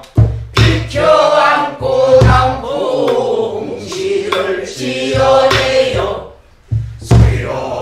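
A woman singing pansori in the Boseong style, long wavering held notes, accompanied by her own buk barrel drum struck with a wooden stick, its low beats landing at intervals under the voice. The singing breaks off briefly about six and a half seconds in, then resumes with drum strokes.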